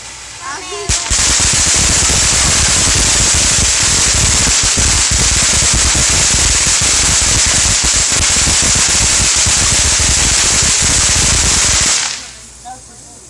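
A ground firework going off in a loud, dense, rapid crackle of small bangs. It starts about a second in, runs for some eleven seconds and stops abruptly near the end.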